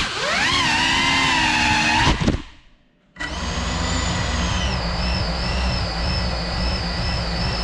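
GEPRC Cinelog 35 cinewhoop's four brushless motors and ducted propellers whining, rising and falling in pitch with the throttle. About two seconds in the whine cuts out for roughly a second as the throttle is chopped, then spins back up to a steady high whine.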